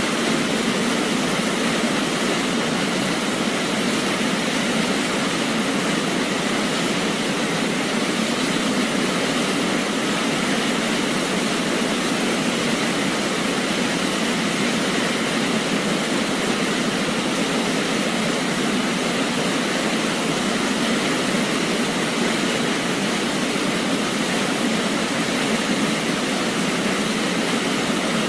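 Waterfall rushing: a steady, unbroken roar of falling water with no changes.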